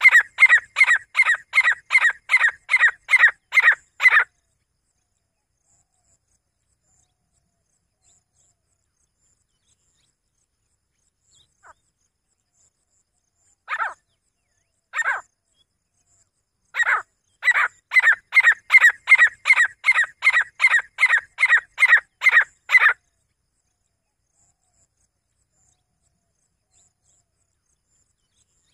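Grey francolin hen calling: a fast run of sharp repeated notes, about three a second, that stops about four seconds in. After a long pause come two single notes, then a second run of about six seconds.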